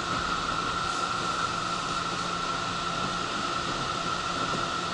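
Steady running noise inside a JR 211 series commuter train car: an even rushing hiss with a steady high-pitched hum over it.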